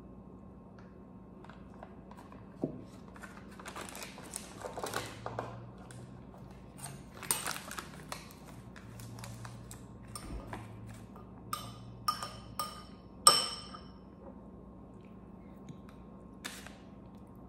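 A metal utensil stirring oats and milk in a bowl: soft scraping and light clicks, then a few sharp ringing clinks against the bowl about twelve to thirteen seconds in. A faint steady hum runs underneath.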